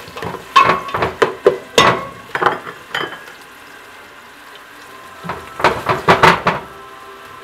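A utensil scraping and knocking against a stainless steel pot while stirring onions and garlic sautéing in oil, in two bouts: through the first three seconds, then again from about five seconds in. A low sizzle of the frying runs underneath.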